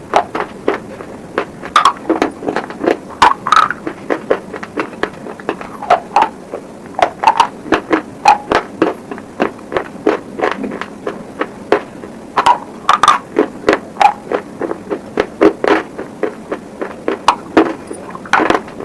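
Close-miked crunching of slate pencil pieces being bitten and chewed: many sharp cracks in quick, uneven succession.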